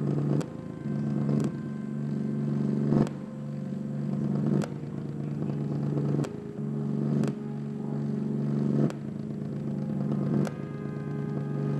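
Electronic synthesizer music: sustained low droning notes that change about every second and a half, each change marked by a short sharp hit.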